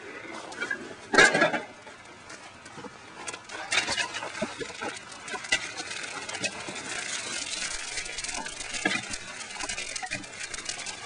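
Wood fire burning in the firebox of a wood-fired pottery kiln, crackling with a dense run of small pops and snaps that thickens partway through. A single loud knock about a second in.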